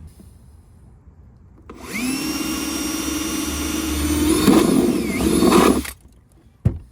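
Power drill with a step bit spinning up about two seconds in and boring a hole through the kayak's side. The motor pitch dips briefly under load near the end before the drill stops suddenly.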